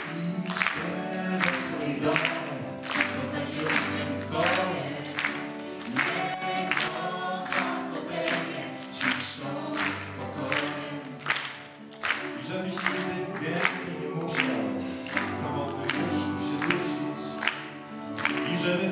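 Mixed group of men and women singing a song together into microphones, with piano accompaniment and a steady beat of sharp strikes.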